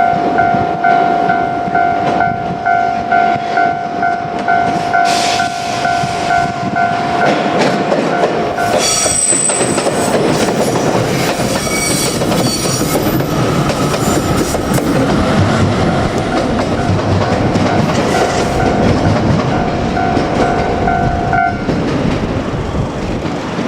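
Railway level-crossing bell ringing, a repeating two-tone ding about twice a second, as a JR Kyushu 817 series electric train runs over the crossing with a loud rumble and wheel clatter. The bell stops near the end.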